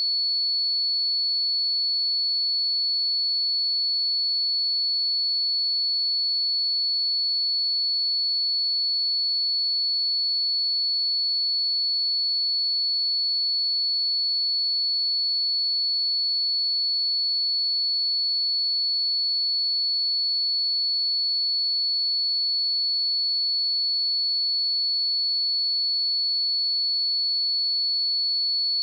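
A pure 4417 Hz sine-wave test tone, one steady high-pitched whistle held at an even level without change.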